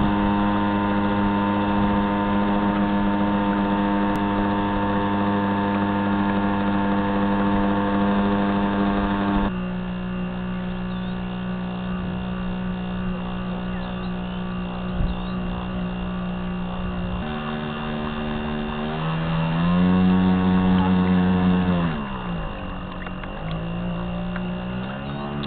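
Motor of an RC model ship heard through the camera mounted on its hull: a steady hum with a whine above it. The pitch drops in two steps, about a third and two thirds of the way through, then rises and gets louder, sinks steeply and climbs again near the end as the throttle is changed.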